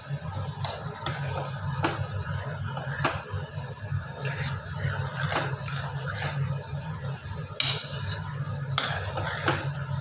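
Irregular clicks and knocks of kitchen utensils over a steady low hum.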